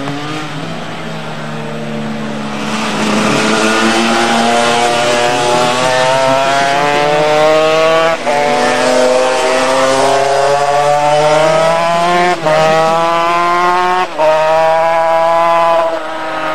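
Honda RS250 two-stroke V-twin racing motorcycle accelerating hard, its engine pitch climbing through each gear and dropping sharply at three quick upshifts in the second half, getting louder as it comes closer.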